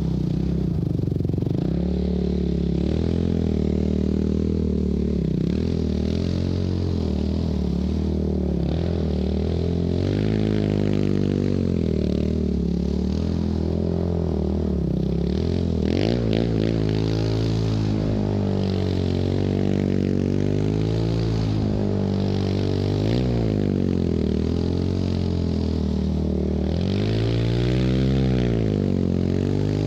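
2004 Yamaha YFZ450 quad's single-cylinder four-stroke engine revving up and down again and again as it slides around on ice and snow. In several stretches there is a hiss of the spinning tyres throwing up snow and ice, with a brief scraping clatter about halfway through.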